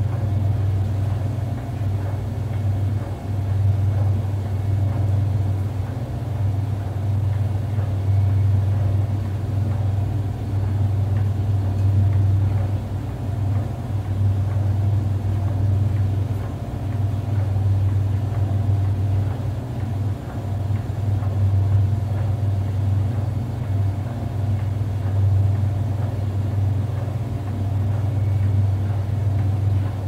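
Brastemp Luxo Linea Venezia 4 kg top-loading washing machine (BLK24Z16) running through its wash cycle with a steady, continuous low hum.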